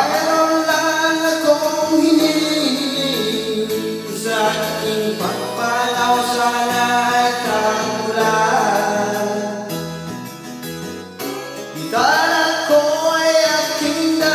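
A man singing a Tagalog song into a handheld microphone over instrumental backing, with new sung phrases starting about four and a half seconds in and again about twelve seconds in.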